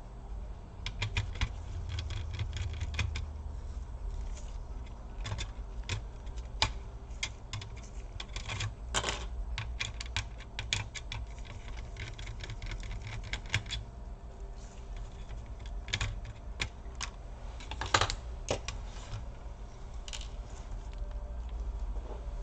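Irregular small clicks and taps of plastic and metal laptop parts being handled and pried apart, with louder knocks about nine and eighteen seconds in.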